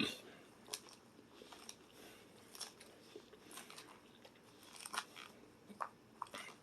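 Close-up chewing of a crunchy undressed salad of romaine lettuce, cucumber and croutons: faint, irregular crisp crunches, with a sharp click right at the start.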